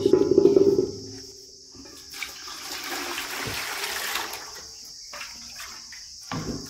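Water poured and splashing into steel vessels from a plastic jug, over a steady high chirring of insects. A loud ringing clang comes at the start.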